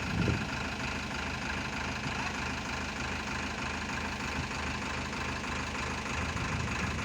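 An engine idling steadily, with an even rapid pulse.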